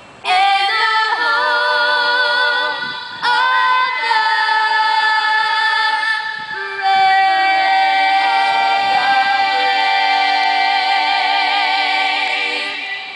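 A group of girls singing a cappella in harmony, most likely the national anthem. They sing three phrases, the last a long held note with vibrato that fades near the end.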